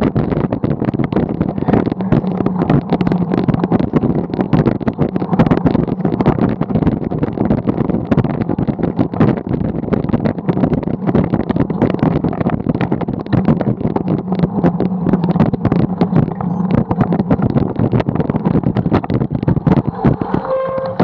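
Wind buffeting the microphone of a bicycle-mounted camera over the rumble and crackle of bike tyres rolling on rough, leaf-covered pavement. Near the end there is a brief squeal as the bike brakes to a stop.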